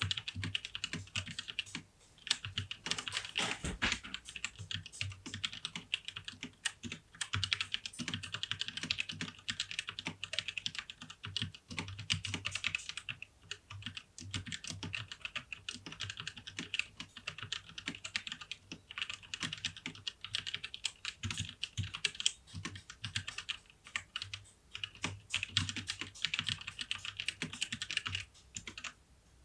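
Fast, continuous typing on a Tecware Phantom 104 mechanical keyboard with Outemu Brown tactile switches: a dense clatter of keystrokes with a brief pause about two seconds in. The typing stops about a second before the end, followed by one last keystroke.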